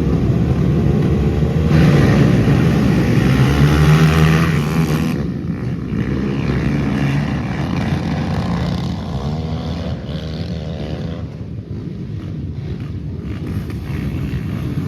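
Racing quad (ATV) engines running and revving on the track. They are loudest for the first five seconds, then drop away sharply and carry on lower.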